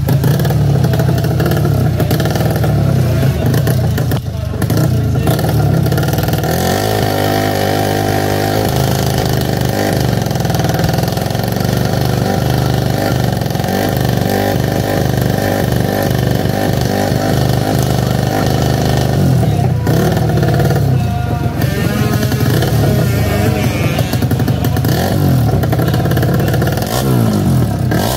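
Drag-racing motorcycle engine running loudly at the start line, its revs rising and falling several times, with a climb about a quarter of the way in and another near the end.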